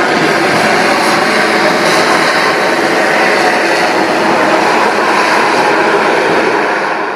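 Twin turboprop engines of a taxiing Beechcraft King Air running steadily at low taxi power: a loud, even whine and propeller hum. It begins to fade out near the end.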